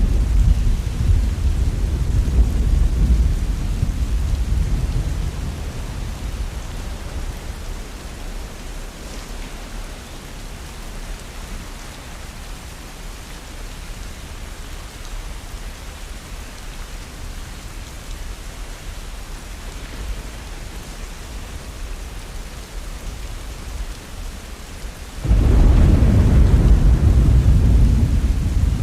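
Steady rain falling, with thunder: a deep rumble dies away over the first few seconds, and near the end a new loud thunder roll breaks in suddenly over the rain.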